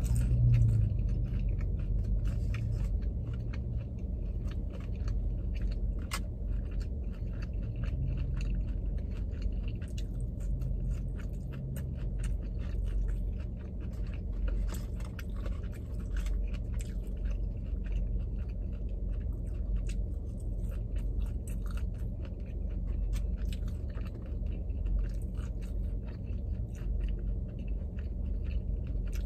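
Close-up chewing of sushi, with many small wet clicks and smacks of the mouth all the way through, over a steady low hum in the car cabin.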